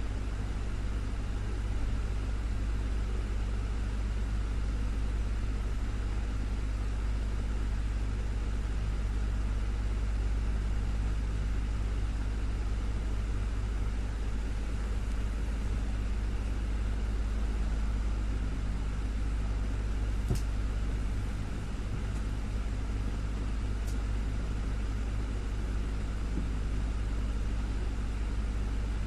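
Desktop fan running steadily: a constant low hum with an even rush of air. Two faint ticks come about two-thirds of the way through.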